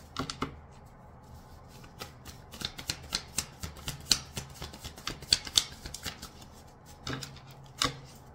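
Tarot cards being shuffled by hand: a run of quick, sharp card clicks, thickest in the middle, with a few single clicks near the end.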